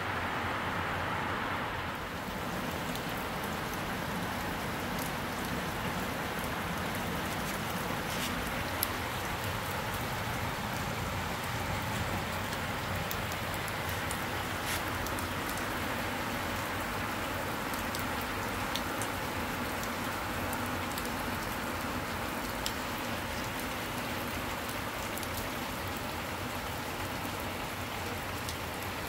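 Rain falling steadily, with a few sharper drop taps scattered through it.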